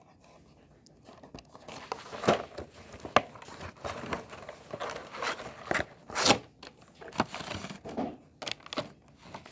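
Cardboard box and clear plastic blister packaging of toy cars being handled and opened: irregular crinkling and crackling with scattered sharp clicks, beginning about a second in.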